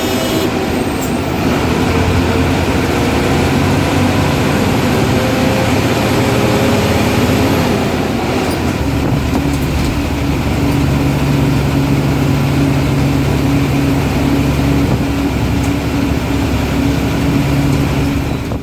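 Ashok Leyland diesel bus engine running under way with road noise. Its note changes about halfway through, then holds a steady pitch.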